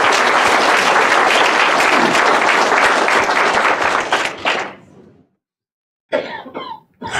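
Audience applauding: dense clapping from many people, tailing off about five seconds in.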